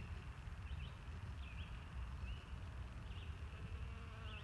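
Faint buzzing of a honeybee, with a few short high chirps at intervals.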